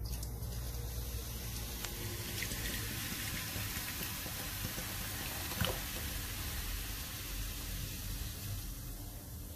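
Coca-Cola poured from a plastic bottle into a rice cooker pot over raw chicken pieces: a steady splashing pour with the fizz of the cola foaming in the pot. A single sharp click about five and a half seconds in.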